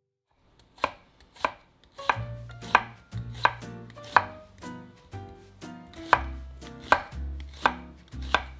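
Chef's knife thinly slicing an onion on an end-grain wooden cutting board: a dozen or so sharp knocks of the blade on the board, about one every two-thirds of a second, starting about a second in. Low music notes play underneath from about two seconds in.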